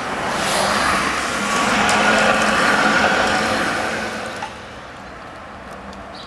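Tatra KT4D tram passing, a rushing noise of wheels and motors over a steady hum. It swells to a peak two to three seconds in, then cuts off abruptly about four and a half seconds in, leaving quieter street noise.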